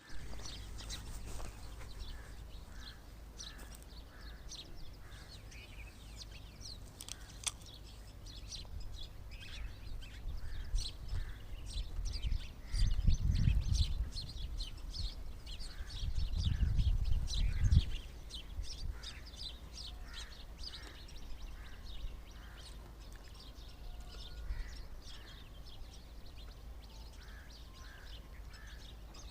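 Small birds chirping busily, with many quick high chirps overlapping and runs of a repeated lower note. Twice, about halfway through, a low rumbling noise rises over them for a second or two.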